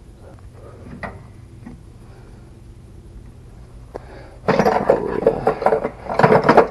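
Camera handling noise. A few faint clicks are followed, about four and a half seconds in, by two bursts of loud rubbing and clattering as the camera is picked up and moved.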